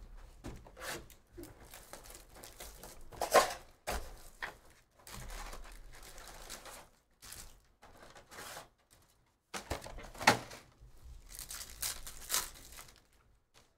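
Trading-card packaging being handled: crinkling wrapping and foil packs as a hobby box of card packs is opened, with a few sharp rips, the loudest about three seconds in and again about ten seconds in, and a foil pack torn open near the end.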